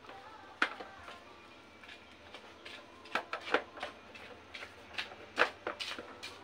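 Metal parts and tools clinking and knocking while a motorcycle front fork is fitted: irregular sharp clicks, some with a brief metallic ring, the loudest a little past the middle and near the end.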